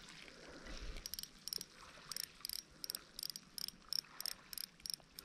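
Faint insect chirping in short, evenly repeated high-pitched pulses, about three a second, starting about a second in.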